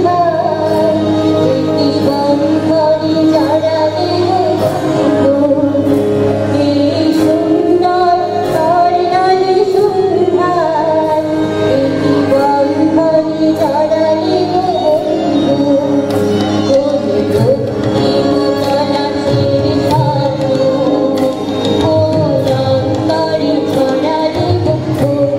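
A woman sings a Bengali song live into a microphone, backed by violin, tabla, keyboard and electric guitar, with the tabla keeping a steady beat.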